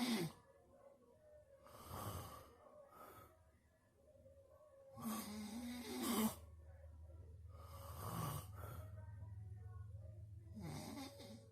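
Snoring: about five snoring breaths, one every two to three seconds. The loudest comes about halfway through and carries a buzzing held pitch.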